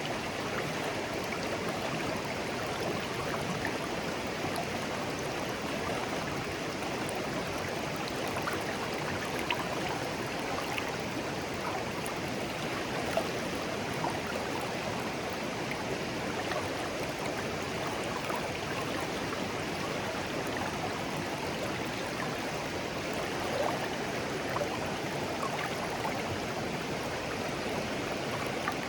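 A clear, shallow stream flowing gently and steadily over stones, with occasional small plinks and splashes.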